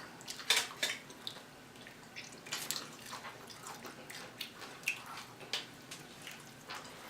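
Eating at the table: scattered short clicks and smacks of chewing fried chicken wings and handling food, with light clatter of dishes and cutlery, a few louder ones among them.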